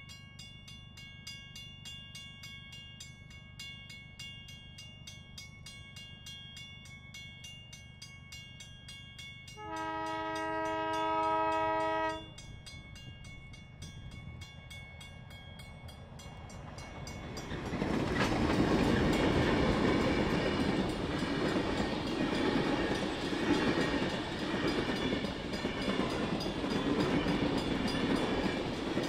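Heritage diesel-electric locomotives hauling a passenger train. The locomotive horn sounds one blast of several notes at once, lasting about two and a half seconds and starting about ten seconds in, sounding for the level crossing. From about eighteen seconds the train passes close by with a loud, steady rumble of engines and wheels on the rails.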